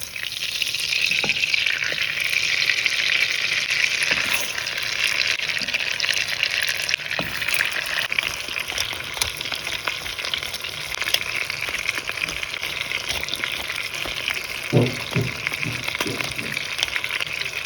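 Lamb shanks frying in hot oil and butter in a pot: a steady sizzle with crackling that swells up in the first second and holds. A few low knocks come about fifteen seconds in.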